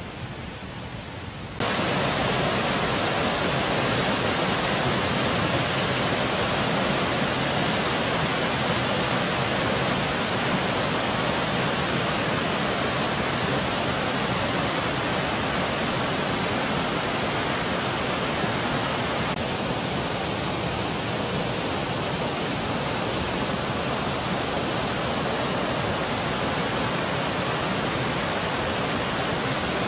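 Steady, even rushing noise with no distinct events. It gets abruptly louder about a second and a half in and changes slightly in tone about two-thirds of the way through.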